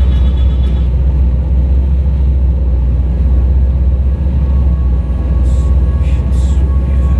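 Speedboat running fast on open water: a steady, heavy low rumble of engine and wind buffeting the microphone.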